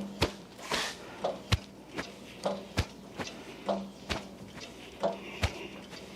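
Hand pallet jack being pumped to lift the Bridgeport mill base: a series of sharp clicks and clunks, about two a second.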